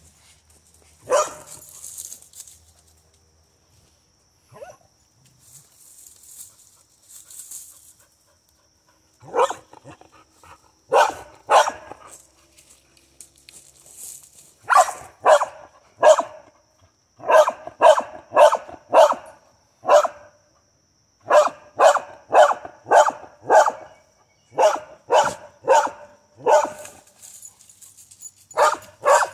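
Dog barking at a chipmunk gone to ground in a burrow at the foot of a tree: one sharp bark about a second in, then from about nine seconds on repeated runs of short, sharp barks, two or three a second.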